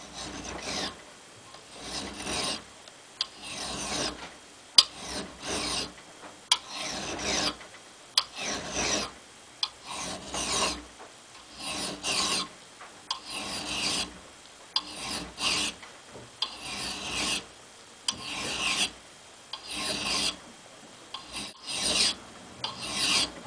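Bastard-cut flat file rasping across the steel cheek of a Wetterlings axe head held in a vise, in slow, even push strokes about every second and a half, with a few sharp clicks of the file on the metal between strokes. The file is taking a little metal off the cheek to flatten it.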